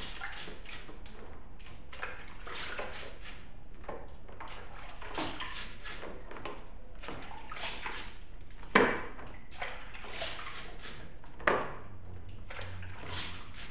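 A small brush scrubbing a wet chainsaw chain that has soaked in Simple Green cleaner, in short bursts of two or three hissing strokes every couple of seconds. A couple of sharp clinks come along the way.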